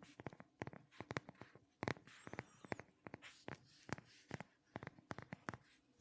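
Close-miked fingers tapping on a red phone case, quick irregular taps several a second, with a short scratchy rubbing stretch about two seconds in.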